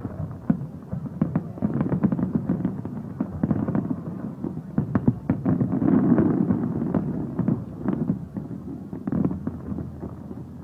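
Aerial fireworks shells bursting in rapid succession, a dense barrage of bangs and crackles that peaks about halfway through.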